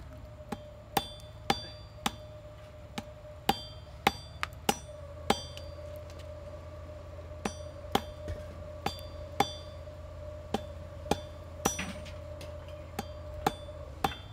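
A hand hammer striking hot steel on an anvil: sharp, ringing blows, about one or two a second, with a pause of a couple of seconds midway. A faint steady hum runs underneath.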